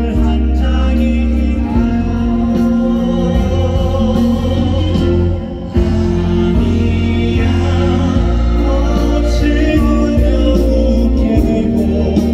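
Live concert music: a band playing with a sung melody over it. The sound dips briefly a little past five seconds in, then comes back at full level.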